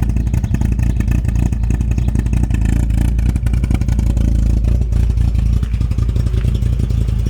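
1989 Volkswagen Jetta's 1.8-litre four-cylinder engine idling rough and uneven, sputtering close to stalling; the fault appears once the engine has run for a couple of minutes, and its cause is unknown.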